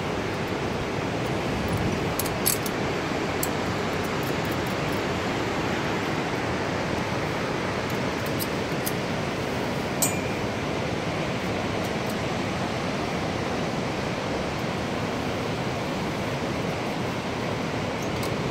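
Steady, even roar of rushing water, with sharp metal clinks of carabiners being clipped onto a harness, loudest about two and a half seconds in and again about ten seconds in.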